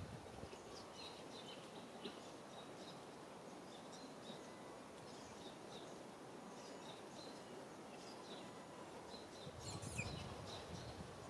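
Outdoor ambience with small birds chirping in short, repeated high calls. A brief louder noise near the end.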